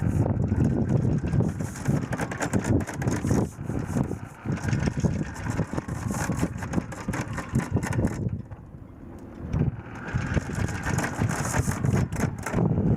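Sailboat's Volvo Penta MD11C two-cylinder inboard diesel running, with irregular clattery noise over it and a brief quieter spell about eight seconds in.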